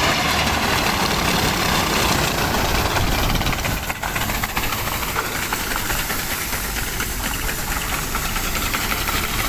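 Swaraj combine harvester's engine running steadily while its unloading auger pours wheat grain into a trolley, with a hissing rush of falling grain.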